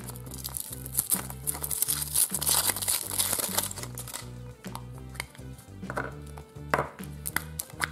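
Thin foil wrapper crinkling as it is peeled off a chocolate egg, over background music with a steady beat. Later a few separate sharp clicks as the chocolate shell is split and the plastic toy capsule inside is handled.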